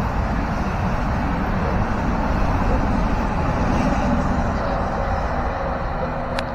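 Passenger train running past on the curved line, a steady rumble of the train on the track.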